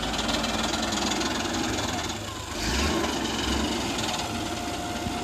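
Hitachi UH04D wheeled excavator's diesel engine running while it works, dipping briefly in the middle and picking up again. A faint steady whine joins near the end.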